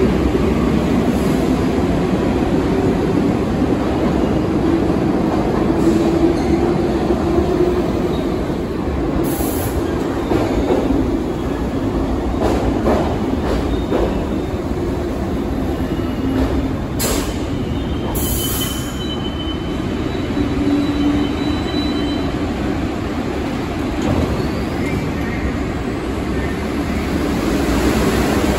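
New York City Subway train running through the station with a steady rumble and motor hum. A few sharp clacks from the wheels come at intervals, and a high wheel squeal starts a little past the middle.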